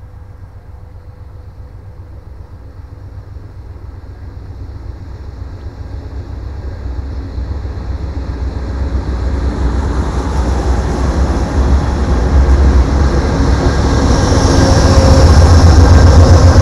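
Amtrak passenger train led by GE Genesis diesel locomotives approaching and passing close by. The low engine rumble grows steadily louder, and wheel-on-rail noise fills in as the locomotives and cars go past near the end.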